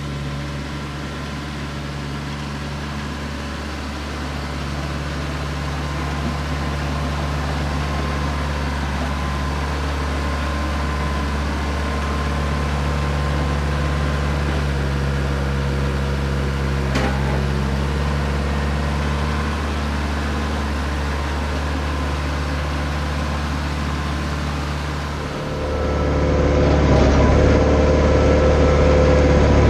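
Branson 4520 compact tractor's diesel engine running steadily while it drags a box blade over the dirt. Near the end the engine becomes louder and closer.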